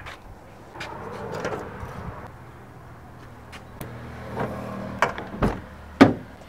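Metal clanks and clicks from a steel gate, then a key turning in a Hyundai car's door lock and the driver's door opening. The loudest is a sharp clunk about six seconds in.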